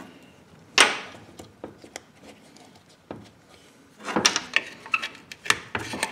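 Clicks and knocks from a brake booster and its small parts being handled on a workbench: one sharp knock about a second in, a few light clicks, then a quick run of clicks and knocks near the end.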